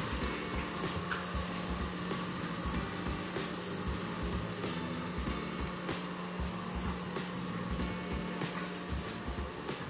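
Steady train machinery noise heard inside a steel caboose: a constant low hum under a high-pitched whine, with irregular low thumps and knocks throughout.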